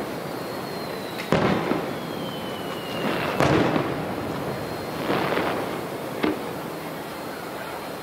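Aerial fireworks shells bursting, four bangs about two seconds apart, the loudest a little before the middle, some trailing off in crackle.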